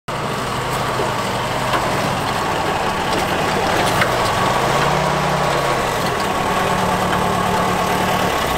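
Military jeep's engine running as it drives slowly up and stops, the engine note swelling briefly about halfway through. The engine sound ends near the end.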